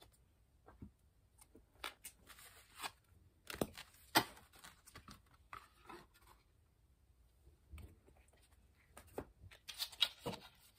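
Tarot cards and a cardboard deck box being handled: scattered soft rustles, taps and clicks, loudest about four seconds in and again near the end.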